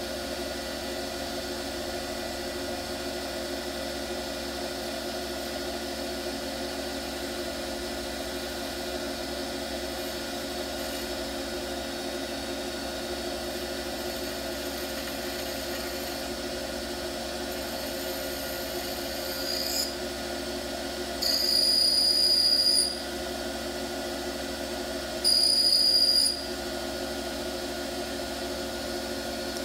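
A ring-turning lathe runs steadily, its motor humming, while a cutting tool turns the outer face of a sterling silver (925) ring into a domed profile. Twice in the last third, for a second or so each, there is a louder high-pitched screech of the tool cutting the silver.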